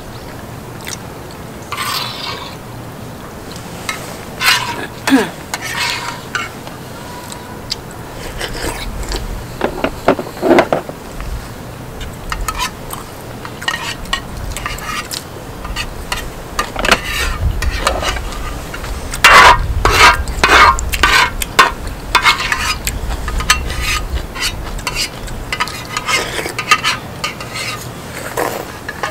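Metal spoons and chopsticks clinking, tapping and scraping against bowls and dishes while people eat soup and rice, in many short irregular clinks that come more often in the second half.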